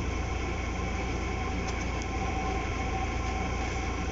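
Steady mechanical hum of room machinery: an even drone with a faint high tone running through it. A few faint ticks of oracle cards being handled about two seconds in.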